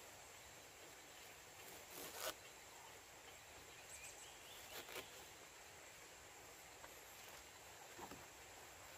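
Faint handling sounds of coir rope being pulled tight and knotted around a bound kithul palm flower cluster: a few short rustles and scrapes, the loudest about two seconds in, with smaller ones near the middle and near the end, over a faint steady high hiss.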